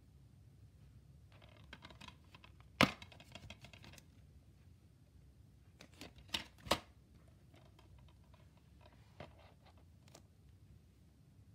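Plastic DVD cases handled and swapped by hand: rattling and light taps, with a sharp click about three seconds in and two more quick clicks a little after six seconds.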